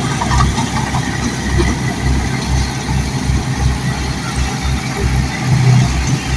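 Bulldozer's diesel engine running steadily at a low, uneven throb, without revving up or down.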